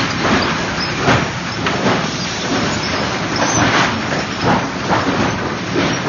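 Automatic sawmill lumber-stacking machinery running: steady machine noise with irregular knocks and clunks, about one or two a second.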